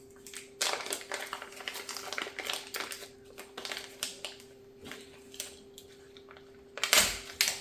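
Packaging crinkling and rustling as items are handled and unwrapped, a busy stretch of rustles followed by a quieter patch, then a louder rustle near the end. A steady low hum runs underneath.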